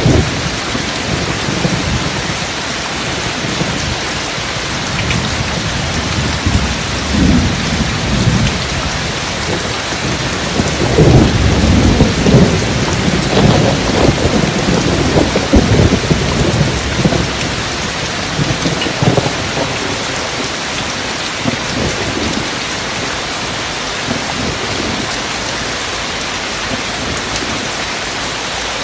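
Steady heavy rain with deep rolling thunder. The rumble swells about ten seconds in, is loudest for the next several seconds, then dies back to rain alone for the last third.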